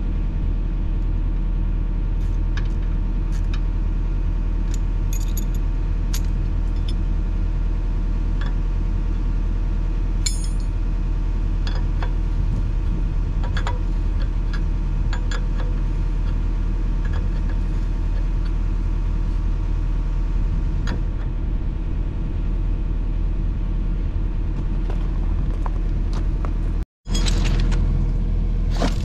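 An engine idling steadily, with scattered light metallic clinks of a wrench on hydraulic hose fittings. The sound drops out for an instant near the end.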